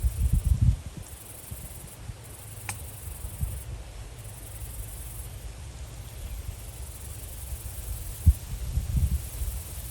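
Insects, crickets or katydids, trilling in a steady high chorus that swells and drops back in long stretches. Low thumps and rumbles on the microphone cut through it near the start and again about eight seconds in, one of them a sharp knock.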